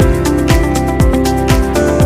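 Background music with a steady beat: a deep kick drum about twice a second under sustained synth-like chords.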